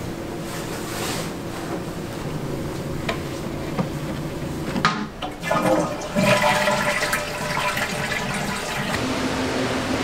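A toilet flushing about halfway through: a sharp clack, then a loud rush of water that settles into steady running water. Before it there is only a soft, low background hum.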